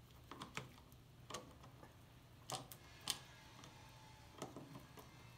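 Faint, scattered clicks and ticks of the centre screw and washer being turned back into a chainsaw's recoil starter pulley in its plastic starter housing, with two sharper clicks about halfway through.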